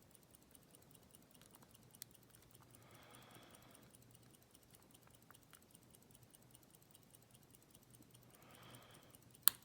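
Faint ticking of a lock pick working the pins of a Master Lock Loto padlock, with a sharp click near the end as a pin sets.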